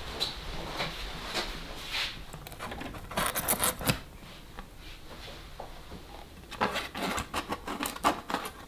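Handling noises: rubbing, scraping and light clicks as a 3D-printed plastic lithophane panel is handled, with two busier stretches, one about three seconds in and one near the end.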